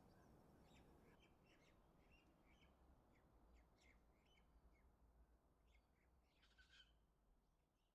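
Faint bird ambience: scattered short chirps over a low rumble, fading out near the end.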